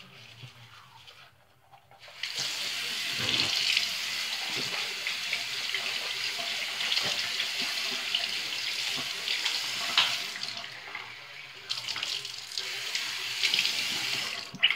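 Bathroom sink tap running, water splashing into the basin; it comes on about two seconds in, eases briefly about two-thirds through, and shuts off just before the end.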